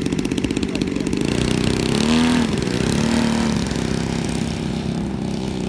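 Model airplane engine running on the ground, briefly revved up and back down twice about two seconds in, then settling to a steady run.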